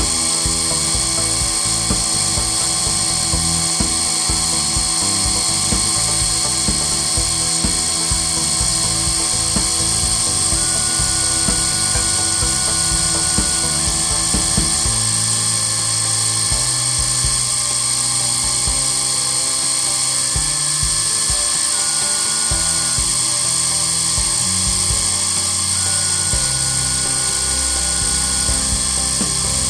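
Sherline CNC mill spindle running at high speed, near 10,000 RPM, with a steady high whine while it mills a logo. Below the whine, the sound of the cutting and the axis motors shifts as the cutter moves, and short steady tones come and go in the second half.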